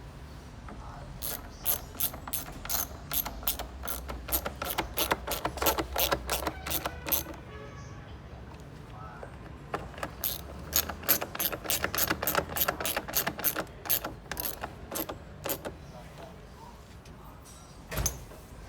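Hand ratchet clicking rapidly in two runs of several seconds, as screws are turned out or in, then a single knock near the end.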